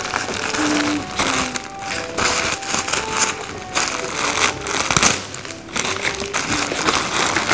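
Tissue paper rustling and crinkling in quick, uneven handfuls as it is pulled from a gift bag and peeled off a wrapped present.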